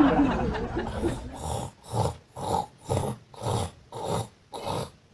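A man's exaggerated fake snoring: a quick run of short snorts, about two a second, starting about a second in.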